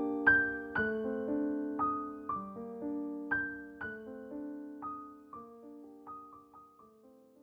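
Background piano music: single struck notes, about two a second, each ringing and decaying, the whole passage slowly fading out.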